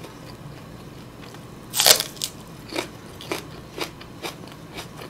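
Biting into the white part of a raw green onion stalk: one loud crisp crunch about two seconds in, followed by crunchy chewing about twice a second.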